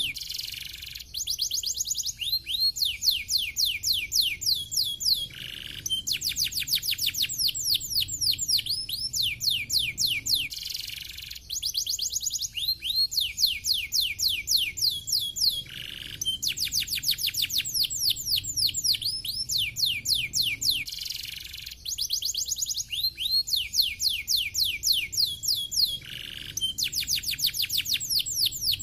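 Domestic canary singing: long runs of fast trills, each a string of quick falling whistled notes, broken by short pauses. The same sequence of phrases comes round again about every ten seconds.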